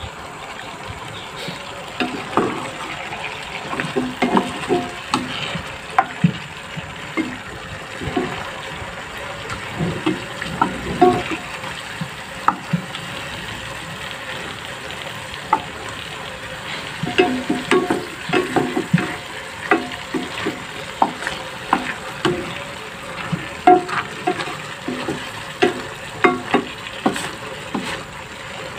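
A spatula stirring whole squid in a stainless steel pot, with irregular clicks and scrapes against the pot over a steady sizzle of the squid cooking in soy sauce and the liquid it has released.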